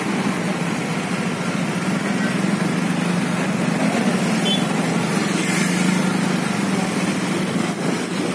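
Motorcycle engines running in slow, congested traffic: a steady engine hum with surrounding road noise.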